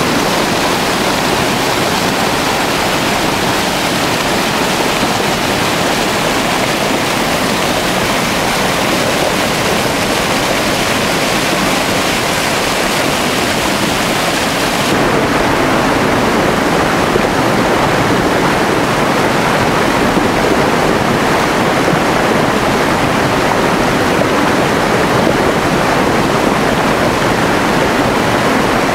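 Small woodland waterfall pouring over rocks into a creek: a loud, steady rushing of falling water. About halfway through the rush turns deeper and fuller, with less hiss.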